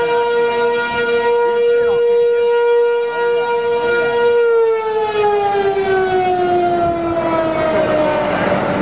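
Outdoor tornado warning siren sounding a loud, steady tone, then winding down, its pitch falling slowly from about halfway through. It is the warning for the tornado forming nearby.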